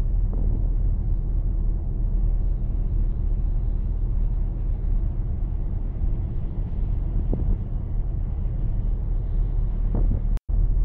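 Steady low hum of the Stena Scandinavica ferry's engines and machinery, with wind on the microphone. The sound drops out for a split second near the end.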